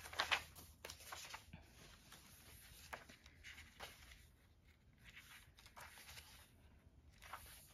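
Pages of a paper composition notebook being leafed through by hand: faint, brief rustles and flicks of paper, a few of them scattered over the stretch.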